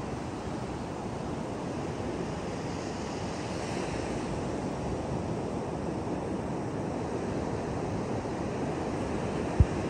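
Sea surf breaking on a sandy beach, a steady wash of waves with wind on the microphone. A single short low thump near the end.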